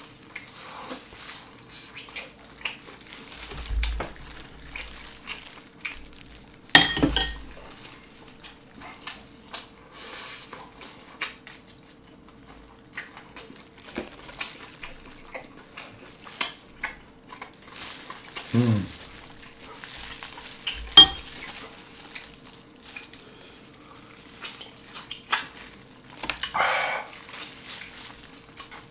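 Close-miked eating of soy-sauce-marinated raw shrimp with rice: wet chewing and smacking, shell handled in gloved fingers, and light clinks of a spoon on the bowl and plate, with two sharper clinks about 7 and 21 seconds in.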